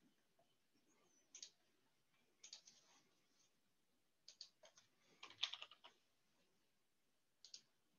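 Faint computer keyboard typing and mouse clicks in short clusters, with the loudest run of keystrokes about five seconds in.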